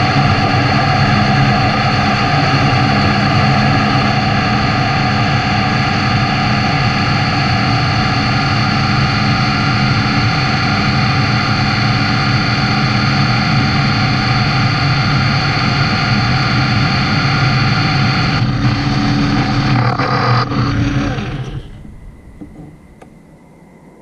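Metal lathe running steadily, a loud drone of whining tones and noise, then switched off about 21 seconds in and winding down to quiet.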